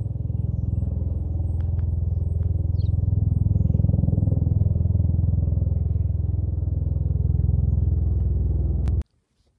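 Long-haired cat purring right at the microphone: a steady low rumble of rapid pulses that grows louder a few seconds in and cuts off abruptly near the end.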